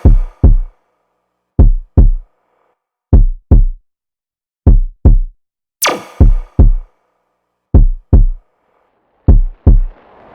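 Electronic music beat: pairs of deep, booming drum-machine kicks about every second and a half, with a sharp crash-like hit at the start and again about six seconds in.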